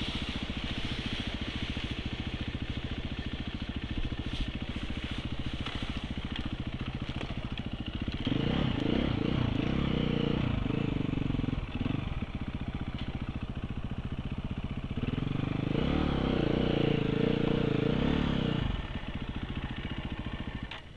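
Off-road motorcycle engine running while riding over rough ground, with two stretches of harder throttle and higher revs, about eight to twelve seconds in and again about fifteen to nineteen seconds in. The engine eases off near the end as the bike slows.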